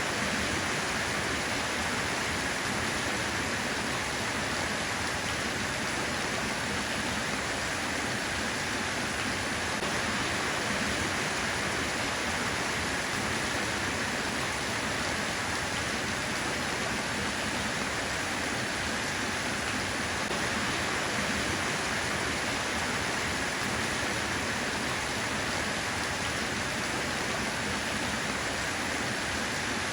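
Steady rain: an even, unchanging hiss with no single drops standing out.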